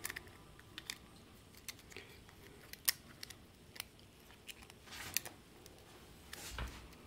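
Irregular small clicks and snips, about a dozen, from hand work with small tools and parts on a dashcam; the sharpest comes about three seconds in.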